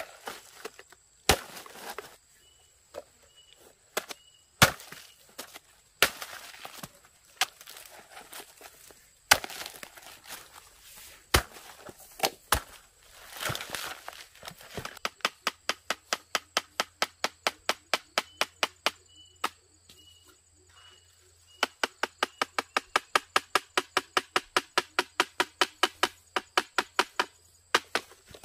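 Chopping with a blade: single sharp chops at uneven intervals at first, then fast, even chopping at about five strokes a second, with a short pause between two runs in the second half.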